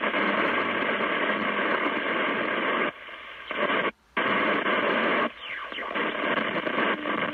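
Kenwood TS-480 transceiver's speaker on 29.300 MHz FM giving out a loud buzzing noise with a steady tone in it, cutting out briefly a few times. It is an unidentified strong signal coming in over S9 and drowning out the other station.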